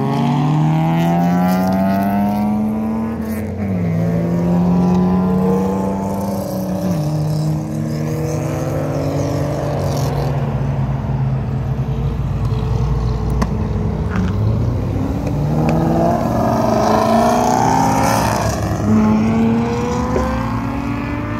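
Performance cars accelerating hard past on the road, engines revving up and dropping in pitch at gear changes about three and a half and seven seconds in, with another car revving up and passing near the end over steady traffic rumble.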